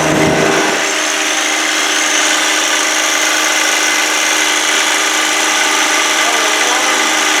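John Deere 1025R's three-cylinder diesel running steadily at high PTO speed with the snowblower engaged and spinning. A low hum drops away under a second in, and the machine noise then runs on evenly.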